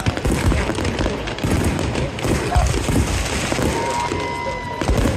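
Fireworks display: a rapid, dense run of aerial shells booming and crackling, with crowd voices under it. A steady high tone sounds for about a second near the end.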